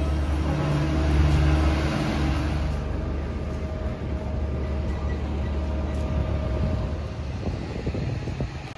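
Steady low engine hum of airport ground noise, with a few held tones over it that change about three seconds in.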